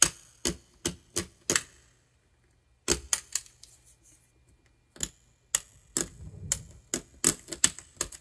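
Sharp, irregular clicks and ticks of a small hand blade chipping hardened old solder rosin off a potentiometer's metal terminal lug, with a pause of about a second after the first two seconds.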